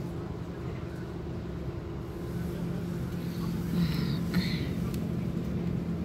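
City bus running, heard from inside the cabin: a steady low engine drone that grows a little louder about two seconds in. Two short higher-pitched sounds come around four seconds in.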